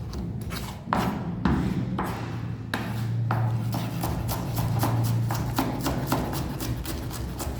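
Kitchen knife chopping on a cutting board in quick, even strokes, about four a second after the first few seconds. Two longer rasping strokes come in the first half, over a steady low hum.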